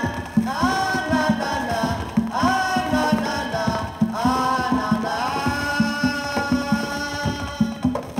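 Guaguancó rumba played from a 45 rpm vinyl record. Conga drums beat a steady pattern under a wordless melodic line, likely sung, of long held notes that scoop up into each note.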